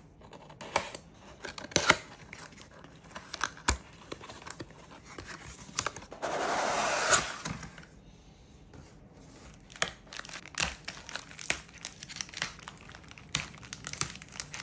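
Unboxing handling noise: sharp clicks and crackles of a cardboard toy box being cut and opened, with a longer tearing sound about six seconds in lasting over a second. Near the end, plastic bags of parts crinkle as hands rummage through them.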